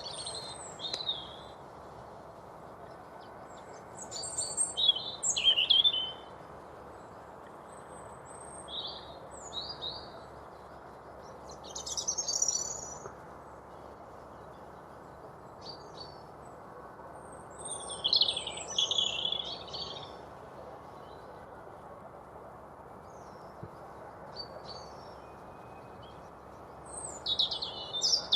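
European robin singing its territorial song: about six short, high, warbling phrases separated by pauses of a few seconds, over a steady faint background hiss.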